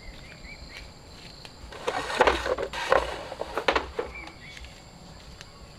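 Bamboo gate being handled, a run of hollow wooden knocks and rattles lasting about two seconds near the middle, over a steady background of insects with a few faint bird chirps.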